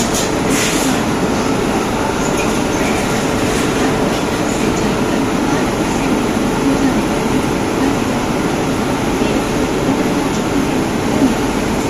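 Steady hum and rush of a WAP-7 electric locomotive standing at a platform, with no breaks or sharp events.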